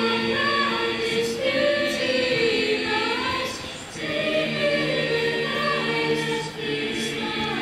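Mixed-voice school choir singing sustained chords, with a brief break between phrases about four seconds in.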